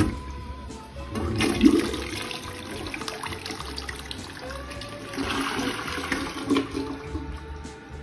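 Toilet flushing: water rushes and swirls down the bowl, starting about a second in.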